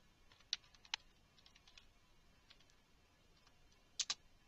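Faint, scattered computer keyboard keystrokes: a few single key clicks spaced out, with a louder quick pair near the end.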